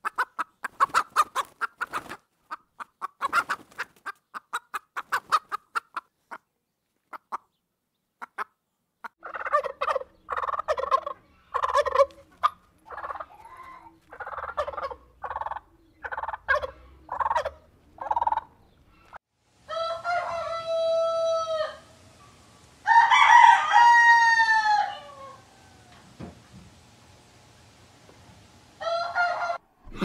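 Fowl calling in turn. First comes a fast run of clucks, then a turkey gives a string of harsh notes about once a second, then come two long crowing calls, each rising and then falling away.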